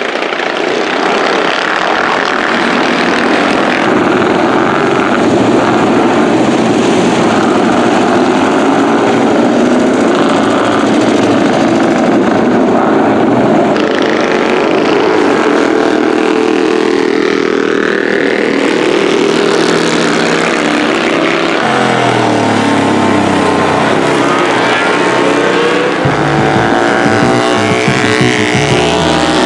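Vintage motorcycle engines running at the same time. In the second half, engine notes rise and fall as the bikes rev and pass.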